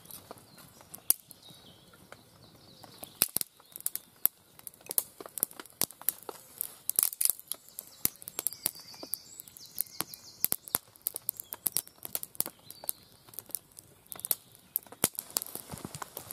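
Wood fire of freshly split sticks and feather sticks crackling, with many sharp, irregular snaps and pops.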